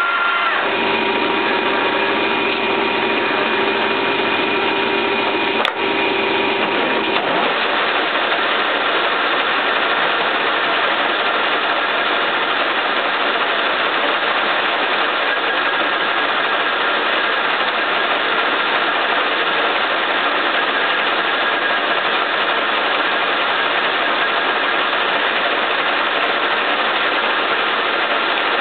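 1K62 lathe running at about 300 RPM, its gearbox and spindle making a steady mechanical noise while an insert cutter machines the clutch part on the faceplate. A whine of several steady tones sounds over the noise for the first few seconds and drops away about seven seconds in, after a single click.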